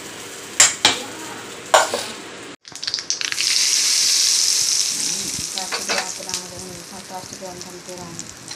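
Three sharp knocks in the first two seconds as a steel mixer-grinder jar is handled. Then hot tempering oil with mustard seeds, curry leaves and garlic is poured onto coconut chutney and sizzles loudly, starting about three seconds in and slowly dying down.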